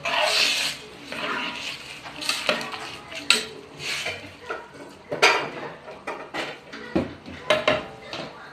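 A metal utensil knocking and scraping against a cooking pot, irregular clinks and scrapes as food is stirred.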